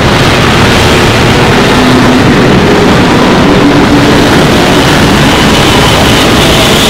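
Loud, steady electronic soundscape: a dense, noisy rumble like a heavy engine, with a few faint held tones drifting in and out.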